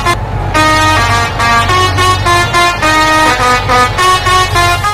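A multi-tone "telolet" horn playing a quick stepping tune over a steady low engine drone, with a brief break in the notes just after the start.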